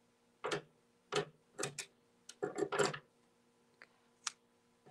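Scissors snipping off excess embroidery thread: a series of short, sharp clicks, several bunched together near the middle.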